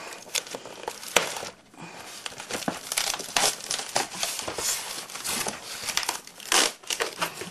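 Polystyrene packaging and bubble-wrapped model train coaches being handled as the lid comes off: irregular crinkling, rustling and scraping, sparse at first and denser from about a third of the way in.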